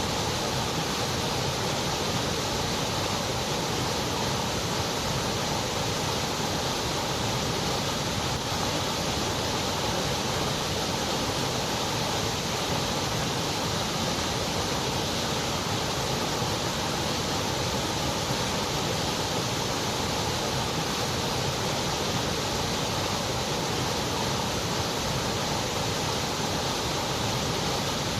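Continuous white noise: a steady, even hiss that never changes, with the very highest treble rolled off.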